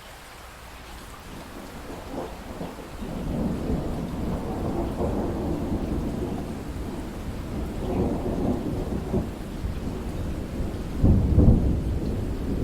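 Steady rain with thunder rumbling in over it, starting about two seconds in, rolling in waves, and loudest near the end.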